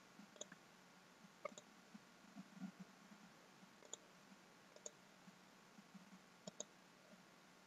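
Faint computer mouse button clicks, about a dozen spread out, some in quick pairs like double-clicks.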